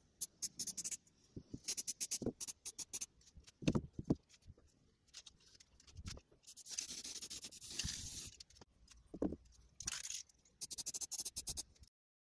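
Aerosol spray-paint can in use: fast rattling clicks of the mixing ball as the can is shaken, a couple of knocks about four seconds in, then a steady hiss of spraying for about a second and a half, a shorter burst of spray, and more rattling near the end.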